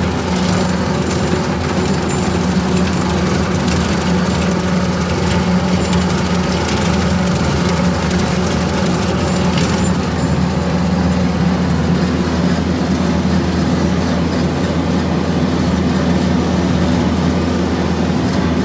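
Kubota MX4700 tractor's diesel engine running steadily under load, driving a six-foot Woods rotary cutter through tall grass. There is a light crackle over the engine sound for the first half, which fades about halfway through.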